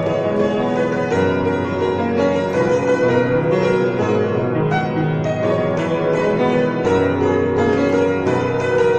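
Piano played with both hands: a busy stream of quick notes over sustained bass notes.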